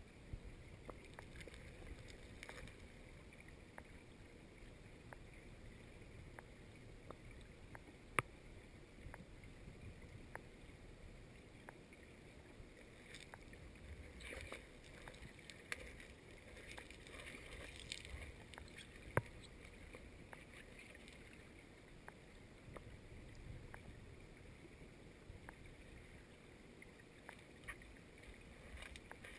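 Faint, muffled river water heard through a waterproof-housed GoPro Hero 2 held underwater: a steady low wash with scattered small clicks and ticks, and two sharper clicks, one about a quarter of the way in and one about two-thirds of the way in.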